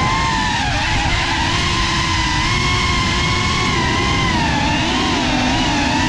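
Cinelog35 cinewhoop FPV drone's motors and propellers whining, the pitch wavering up and down with the throttle, over a rush of wind noise.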